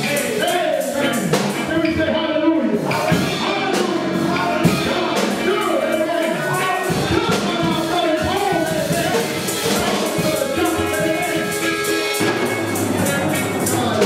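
A live gospel church band with drums plays behind a voice singing or chanting over it, with hand-clapping in time.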